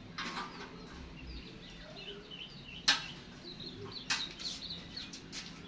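Small birds chirping. There is a sharp knock about three seconds in and a weaker one a second later, as the roasting gear is handled.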